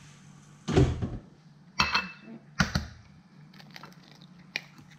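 An egg being cracked into a small glass dish on a granite worktop: a few sharp knocks in the first three seconds, one with a brief glassy ring, then small clicks of shell as it is pulled apart.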